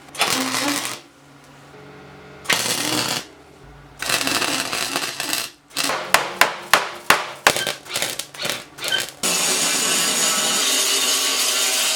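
Workshop tool noise: a few short bursts, then a quick run of about a dozen sharp strikes, then a steady, even tool noise that starts about nine seconds in.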